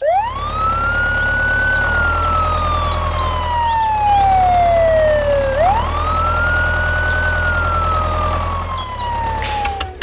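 Ambulance-style wail siren: the pitch rises quickly, then falls slowly over about four seconds, twice, over a steady low engine rumble.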